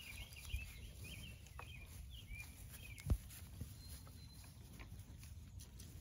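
Faint outdoor pasture ambience: a bird chirping and warbling for the first three seconds or so, with scattered soft ticks and rustles and one sharper click about three seconds in, over a low rumble.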